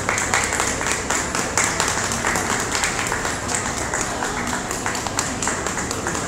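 Audience applauding, a dense patter of many hands clapping that breaks out suddenly.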